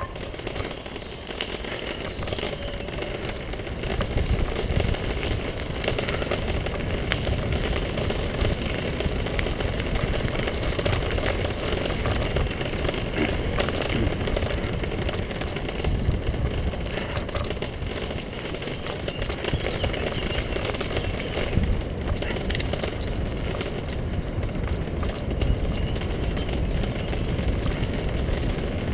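Wheels rolling fast over a gravel and paved path: a continuous rumble with irregular jolts and rattles over bumps.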